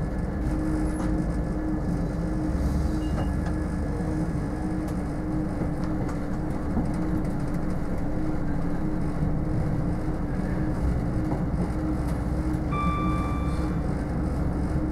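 Steady rumble and hum of a diesel passenger train running, heard from inside the carriage. A short high beep sounds about two seconds before the end.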